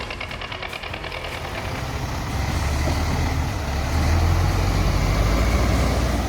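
A heavy vehicle's engine running with a fast, even clatter, then a deep rumble that grows louder from about two seconds in and eases off near the end.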